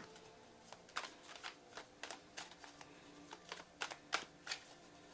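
Cards being shuffled and handled by hand: an irregular run of crisp clicks and snaps, a few each second.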